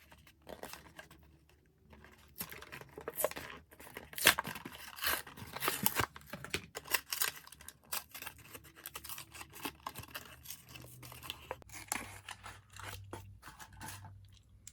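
Packaging of a Hot Wheels die-cast car being opened by hand: cardboard and plastic blister tearing and crinkling in an irregular run of rustles and clicks, busiest in the middle.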